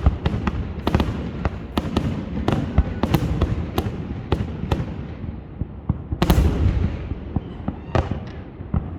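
Aerial fireworks display: a rapid, irregular string of sharp bangs and crackles over a continuous rumble of booms, with a heavier cluster of bursts about six seconds in.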